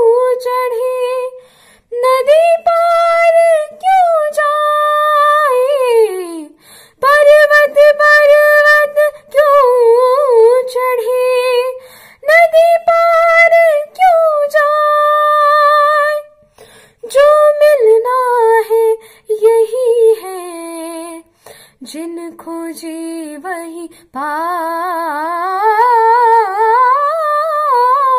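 A girl singing solo without accompaniment, in long held notes with glides and quick wavering ornaments. The phrases are broken by short pauses for breath.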